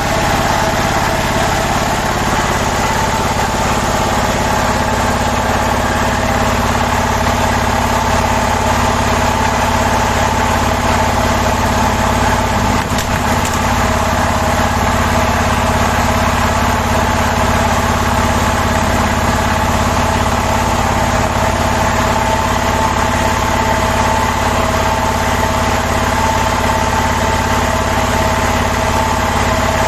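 Hydraulic press power unit running steadily: its three-phase electric motor drives the hydraulic pump with a constant whine over a low hum.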